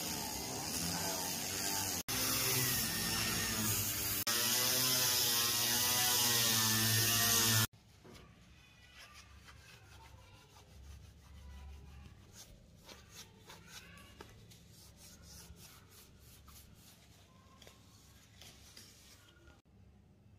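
Hand-held rotary tool with a felt polishing wheel running against the steel parts of an Astra 4000 Falcon pistol, a loud whine wavering in pitch, which cuts off abruptly about a third of the way in. After that, faint cloth rubbing and light metal clicks as the polished slide is wiped and handled.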